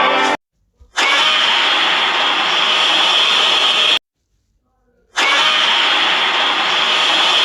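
Two harsh, rasping monster roar sound effects, each about three seconds long and separated by about a second of silence.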